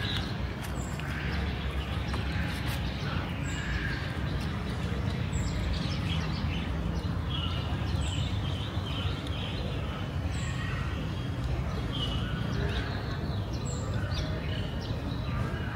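Outdoor ambience: small birds chirping now and then over a steady low rumble, with faint voices in the background.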